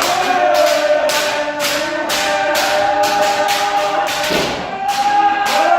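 Several kendo practitioners shouting long, held kiai together over a rapid, uneven run of sharp thuds, about three or four a second, from stamping feet and strikes in the drill. The shouts dip briefly a little after four seconds in, then swell again.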